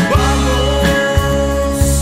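Rock band playing: a man singing into a microphone over guitar and drums, with a heavy low end and a few drum hits.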